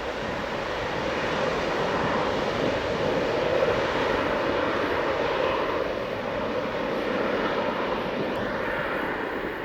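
Aircraft engines of a plane passing by, a steady rushing engine noise that swells to its loudest a few seconds in and then slowly fades.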